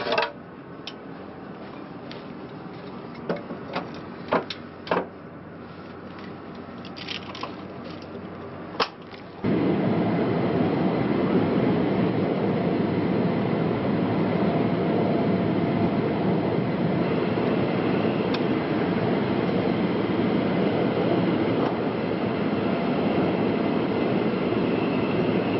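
Several sharp clicks and knocks over a low background, then about nine seconds in a loud, steady rushing noise starts abruptly and runs on unchanged.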